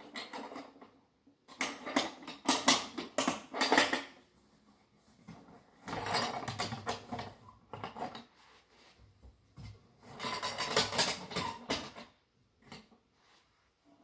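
Hands handling a wooden crate and its lid latches: clattering and rustling in three bursts of about two seconds each, with short quiet gaps between.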